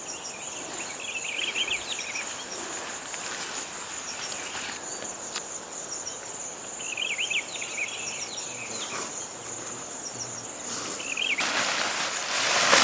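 A steady high insect trill, like crickets, with short bursts of bird chirping three times. A loud rush of noise takes over near the end.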